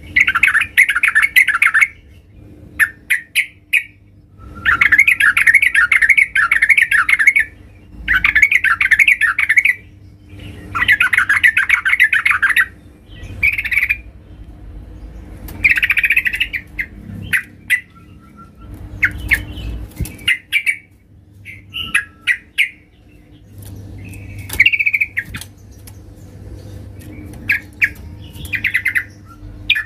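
Yellow-vented bulbul (trucukan) calling, given as a female calling to males: bursts of rapid, bubbly chattering notes a couple of seconds long, repeated every few seconds with short single calls in between. A faint steady hum lies underneath.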